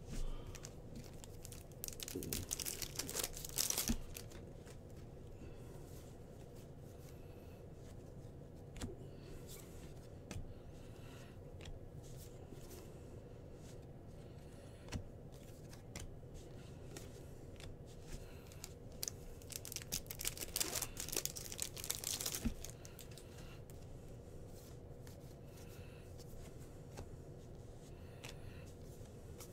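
Trading card pack wrappers being torn open and crinkled, in two bursts of tearing, about two seconds in and again around twenty seconds in, with light clicks of cards being handled in between.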